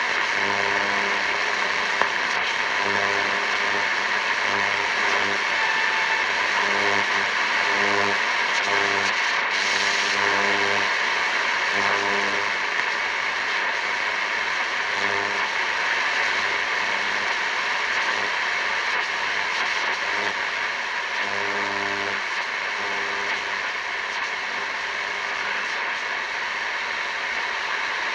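Grundig Ocean Boy 210 portable radio receiving AM/shortwave static, a steady hiss between stations. Over it a low buzzing signal keys on and off in irregular pulses of a fraction of a second to about a second, then stops near the end.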